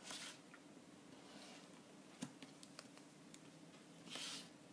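Faint handling of a roll of tape on paper: tape pulled off the roll with a short hissing rip at the start and again near the end, and a sharp click with a few small ticks between as it is pressed down and torn.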